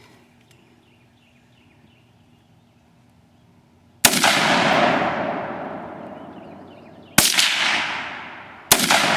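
AR-15 rifle with a Tac-Con rapid-fire trigger firing, after a few seconds of quiet: a fast string of shots about four seconds in, another short string about three seconds later and a third near the end, each with a long echo dying away.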